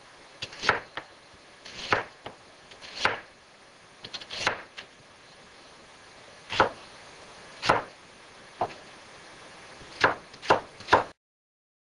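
Kitchen knife slicing a carrot on a plastic cutting board: about ten separate chops at an unhurried, uneven pace, stopping abruptly near the end.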